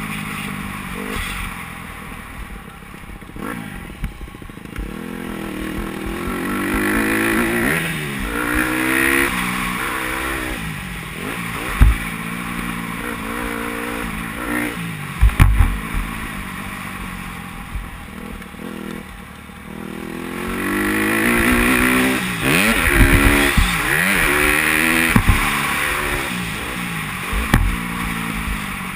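Dirt bike engine revving on a motocross track, its pitch climbing and dropping with throttle and gear changes, louder in two long pulls. A few sharp knocks cut through it, the loudest about halfway through.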